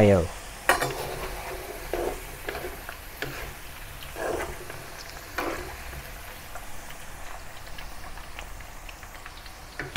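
Potato cubes deep-frying in hot oil in a wok, a steady sizzle, with a few knocks and scrapes as a metal skimmer and wooden spatula work against the wok.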